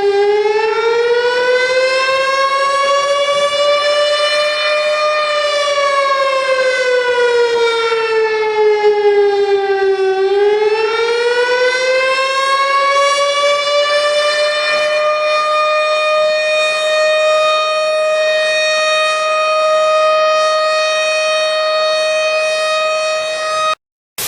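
Civil defense siren sounding an attack warning. Its pitch rises for about five seconds, falls for five, rises again and then holds steady before cutting off suddenly near the end. A short burst of noise follows right after.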